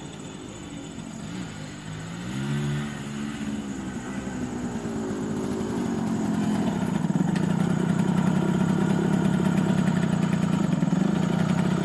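Suzuki A100's single-cylinder two-stroke engine, fainter at first and rising and falling in pitch as the bike is ridden in, then louder and steady at idle from about halfway through.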